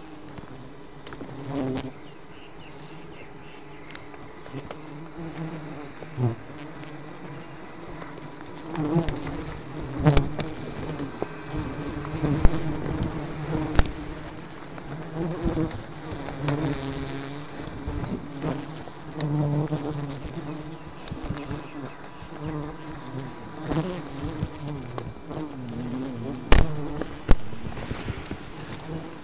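A giant honey bee colony on its open comb buzzing: a dense, continuous low hum that swells and fades, broken by a few sharp knocks, the loudest near the end.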